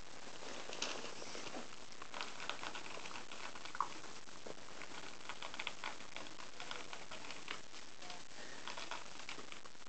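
Maltese puppies' paws and bodies scrabbling and pattering on newspaper, a busy run of small ticks and paper rustles. One short, sharper sound stands out a little before the middle.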